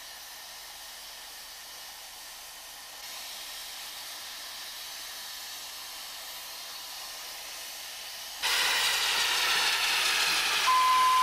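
Mallet steam locomotive standing with steam hissing steadily; the hiss gets much louder about eight seconds in as steam blows from the engine. Just before the end its steam whistle sounds one steady note, the signal for departure.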